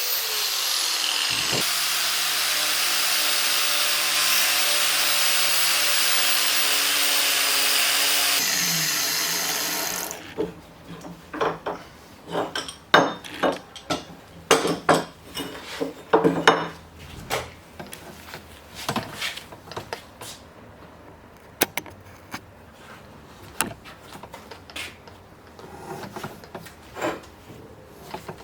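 An electric power tool runs steadily for about eight seconds, then winds down and stops. After that come scattered sharp clicks and knocks, with quieter scraping between them.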